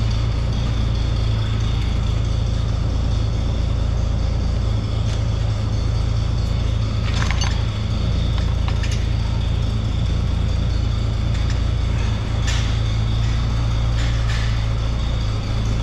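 Oliver 1600 Industrial tractor's engine running steadily while its hydraulic stabilizer is tested, with a few short metallic clanks about 7, 9, 12 and 14 seconds in.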